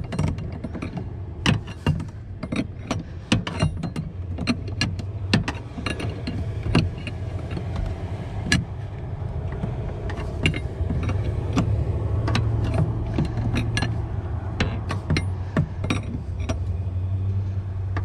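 Ratchet wrench clicking in short, irregular strokes as a brake light pressure switch is tightened against its air fitting, over a steady low hum.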